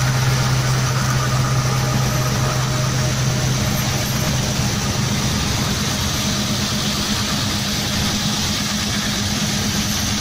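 Tractor engine running steadily under load while driving a stone burier through sandy soil: a constant low drone over a broad rush of noise from the rotor and soil. The pitch of the drone shifts about halfway through.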